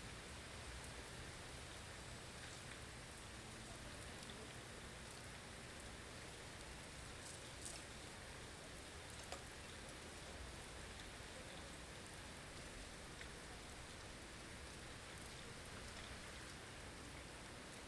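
Blizzard ambience: a faint, steady hiss of wind-driven snow, with a few small ticks, the clearest about nine seconds in.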